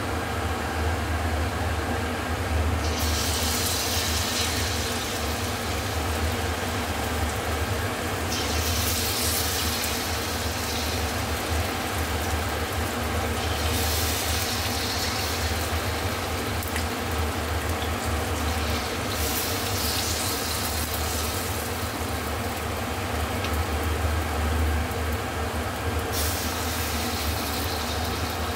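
Spoonfuls of tofu-and-flour fritter batter dropped into hot oil in a stainless steel wok, each setting off a sizzle that swells and dies down over a few seconds, five times about every five seconds, over a steady low hum.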